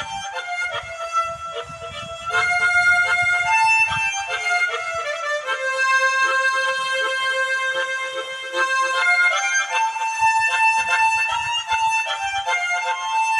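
Harmonica playing a slow melody in long held notes, with rich, reedy overtones.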